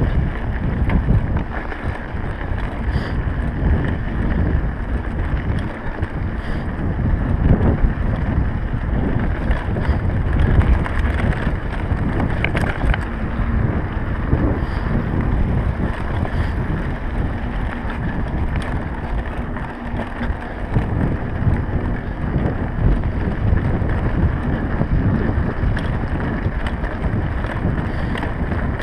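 Wind buffeting the microphone of a camera riding on a mountain bike, over the steady rumble of knobby tyres rolling on a gravel dirt road, with occasional small clicks and rattles from the bike.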